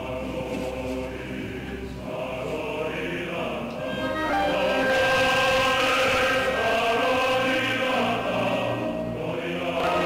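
Background music with choir-like, chanting voices on long held notes, growing louder about four seconds in.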